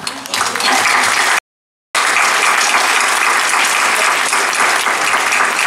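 Audience applauding, a dense sustained clatter of many hands clapping, louder than the talk around it. The sound cuts out completely for about half a second near a second and a half in, then the applause carries on.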